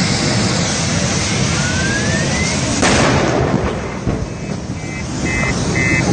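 A burning vehicle wreck on a highway: a steady roar of fire, with a couple of rising whistling tones. A single loud bang or blast comes just under three seconds in, and then a car alarm starts beeping about twice a second.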